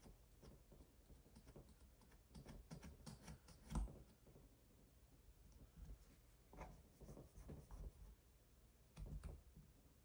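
Faint scraping and light taps of a small plastic squeegee pressed and slid across a phone's screen protector to push out air bubbles, in short strokes with a slightly louder tap about four seconds in.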